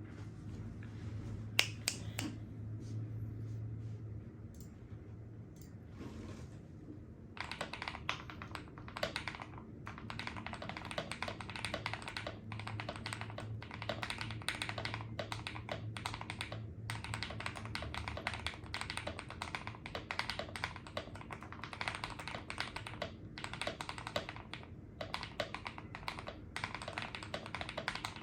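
Typing on a KBDfans KBD67 custom mechanical keyboard, a sound its owner calls creamy: a few scattered keystrokes, then steady fast typing from about seven seconds in.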